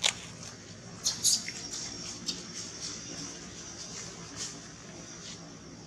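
Baby monkey giving short, high-pitched squeaks, several scattered through, with the loudest ones about a second in.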